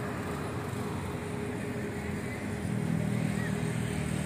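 A car driving past, its engine and road noise swelling a little over halfway through, over a steady low hum.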